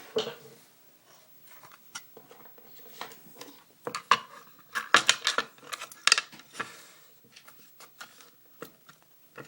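Small tools and a pinning tray being picked up and set down on a work surface: an irregular run of clicks, clinks and scrapes, busiest around the middle.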